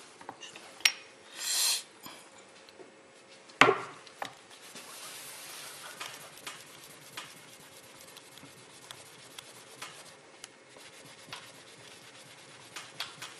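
Paper towel and sandpaper rubbing and wiping over a small cured-putty test piece, with scattered small handling clicks. A brief hiss comes about a second and a half in, and a single sharp knock about three and a half seconds in is the loudest sound.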